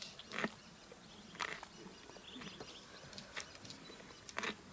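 Lions feeding on a waterbuck carcass: short, crackly chewing and crunching at meat and rib bones, about once a second.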